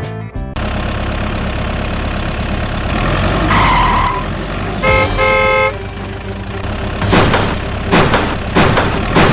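Vehicle engine running steadily, with a horn sounding: one held beep about a third of the way in, then two short toots just past the middle. Several sharp knocks follow near the end.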